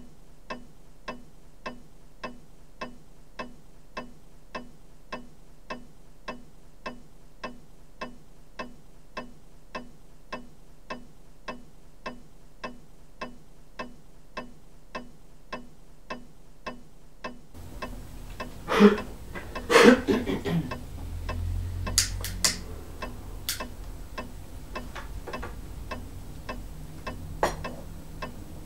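Steady, evenly spaced ticking, a little under two ticks a second. About two-thirds of the way in, room noise comes up and a few louder knocks and clatters sound over the ticking.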